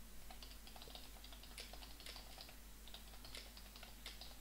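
Computer keyboard typing, faint: quick, uneven runs of key clicks with brief pauses between them.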